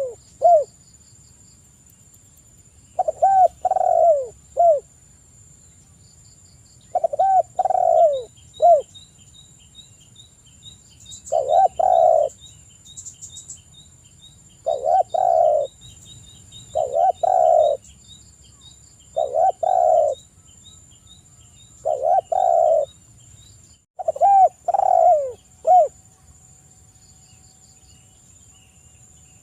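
Spotted dove (tekukur) cooing, repeating its short phrase of a few descending hoots about every two to four seconds. A faint rapid high ticking runs through the middle, and a steady thin high whine sits underneath throughout.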